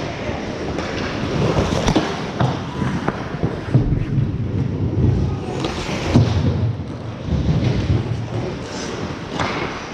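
Ice hockey play echoing in a rink: skate blades scraping and carving the ice, with sharp knocks and thuds from sticks, puck and boards scattered throughout.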